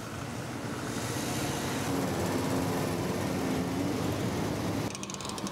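A stream of motorcycles riding past in procession, their engines growing louder as bikes pass close by, with one engine note standing out in the middle. The sound changes abruptly near the end.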